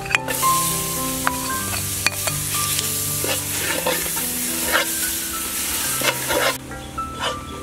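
Garlic, green onion, star anise and cinnamon sizzling as they hit hot caramelised palm sugar in a metal pot, while a metal ladle stirs them with scraping and clinks against the pot. The sizzling drops away near the end.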